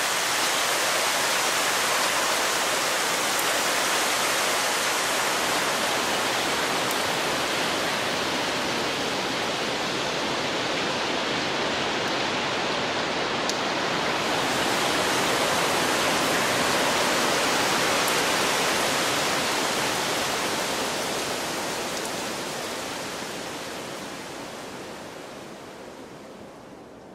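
Heavy rain texture from the Omnisphere 2 patch 'Heavy Showers', built on a field recording of night rain: a dense, steady hiss of rain. The highest part of the hiss dims for a few seconds around the middle and opens up again, then the sound fades out over the last several seconds.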